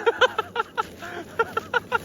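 Shoe rubber squeaking in a rapid, irregular run of short squeaks as a skateboarder drags a foot on icy pavement to brake down a steep hill.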